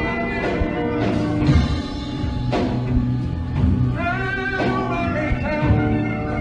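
Live band music: acoustic guitars and a steady beat under voices singing a long, gliding vocal line.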